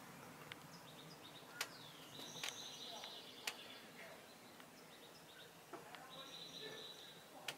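Faint bird calls: short high chirps and held notes under a second long, repeating every second or two, with a few sharp clicks in between.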